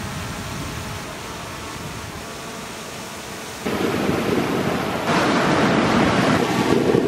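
DJI Mavic Air 2 drone hovering close by, its propellers a steady hum of several pitches. A little over three seconds in this gives way abruptly to louder wind rush and surf, which jumps louder again about five seconds in.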